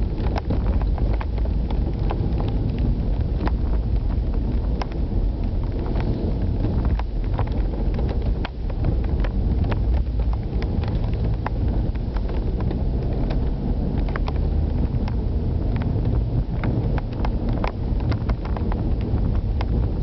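Car engine running under load with tyre and road noise, heard from inside the cabin, with many scattered sharp clicks and knocks over the rough track surface.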